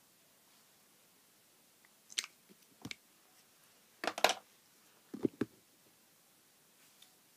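Handling noise: a few short clicks and knocks about two, three, four and five seconds in, the loudest a quick double knock near four seconds.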